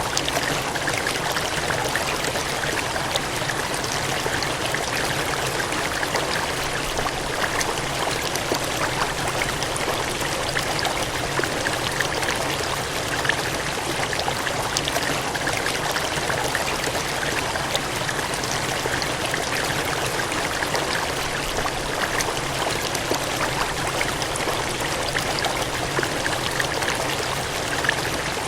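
Water gushing and cascading in a steady, unbroken rush, with fine splashing flecks throughout.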